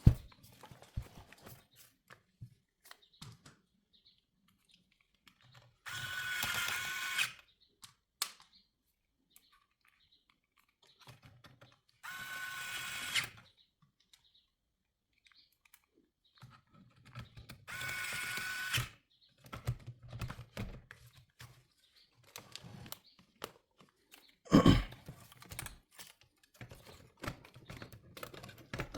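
A small electric screwdriver runs three times in short bursts of about a second each, with a steady whine, driving screws. Between runs come scattered clicks and knocks of parts and tools being handled, with one louder knock near the end.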